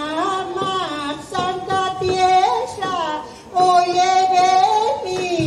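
A woman singing solo, long held notes that bend and slide in pitch, with a short pause for breath about three and a half seconds in, after which she sings louder.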